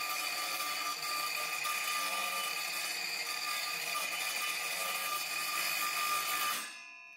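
Small circular saw running with a steady, high whine as its blade is guided across a plastic housing for a shallow cut about a millimetre deep. It stops and fades out near the end.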